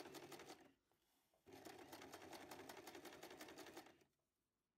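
Domestic electric sewing machine running quietly in straight stitch through voile curtain fabric, with a fast even rhythm of stitches. It stops briefly about a second in, starts again, and stops once more near the end.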